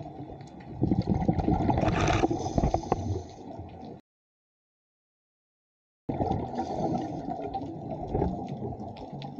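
Muffled underwater sound of a scuba diver's exhaled regulator bubbles, a loud bubbling rumble for about three seconds. The sound then cuts out completely for about two seconds and comes back as a quieter underwater rush.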